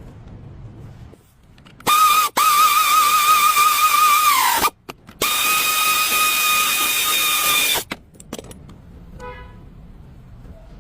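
A vehicle horn sounded in two long blasts of a loud, high, steady tone. The first blast wavers slightly and sags in pitch as it stops.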